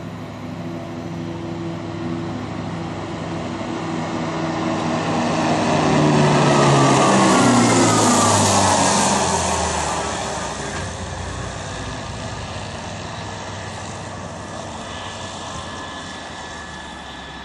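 Boxer eight-wheeled armoured vehicle driving past on a paved road. Its MTU V8 diesel drone and tyre roar grow louder, drop in pitch as it passes about seven seconds in, then fade as it drives away.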